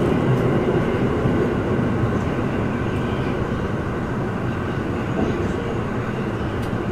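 Tokyo Metro Ginza Line 1000 series subway train running through a tunnel, heard from inside the car: a steady rumble of wheels on rail that grows a little quieter toward the end.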